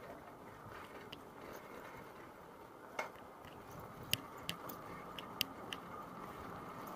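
Bicycle rolling over a brick-paved street: a steady rumble of tyres on the bricks, broken by several sharp clicks and rattles from the bike, most of them in the second half.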